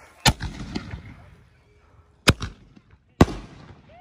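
Aerial firework shells, a 6-inch and a 5-inch, fired from mortar tubes: three sharp bangs, the second about two seconds after the first and the third a second later, each trailed by smaller pops and an echoing tail.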